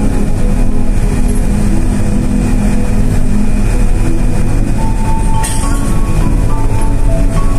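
Steady low rumble of a bus engine and road noise while driving. Music with a melody comes in about five seconds in, and there is one brief sharp knock shortly after.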